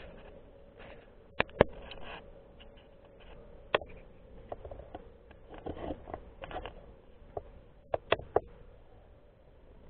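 Garden-scale model trains running on outdoor track: sharp clicks of wheels crossing rail joints, a pair about a second and a half in, one near four seconds and three in quick succession about eight seconds in, over a faint steady hum.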